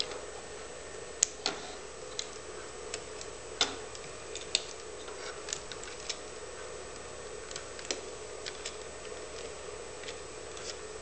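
Irregular light clicks and taps of hard plastic parts and a small wire connector as a camcorder battery plate is connected and fitted back onto the camera body, the sharpest clicks in the first half. A steady faint hum sits underneath.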